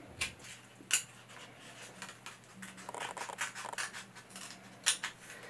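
Small sharp scissors cutting a slit in stiff cardboard: a few crisp snips about a second in and near the end, with a run of softer cutting strokes in the middle.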